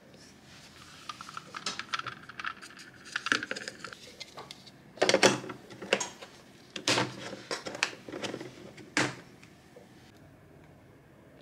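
Plastic microwave egg cooker being handled: eggs clicking into the tray, the dome lid knocked into place and the side clips snapped shut, in a string of light clicks and then several sharper knocks, the last about nine seconds in.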